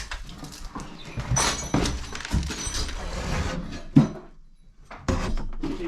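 Irregular knocking, scraping and clattering of old objects being shifted and handled, with a sharp knock about four seconds in.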